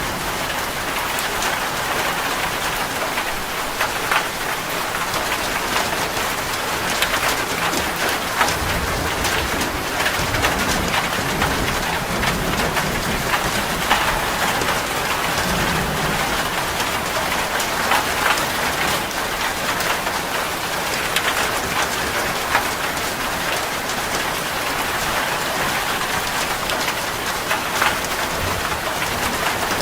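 Heavy rain falling steadily on a metal roof, with many sharp drop impacts ticking through the constant hiss. A low rumble of thunder comes and goes around the middle.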